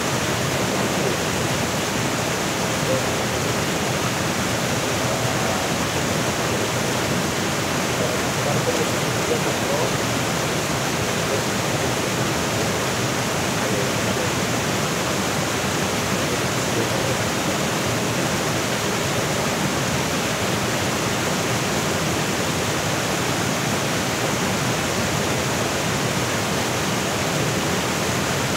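Waterfall pouring into fast-flowing water: a steady, unbroken rush.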